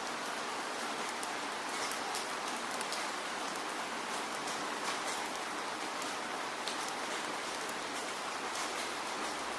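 Heavy rain falling steadily, a dense even hiss with the sharp ticks of individual drops striking a surface scattered through it.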